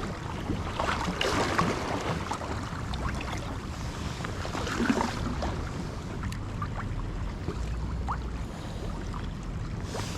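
Water sloshing and splashing around a kayak in choppy waves, with wind rumbling on the microphone.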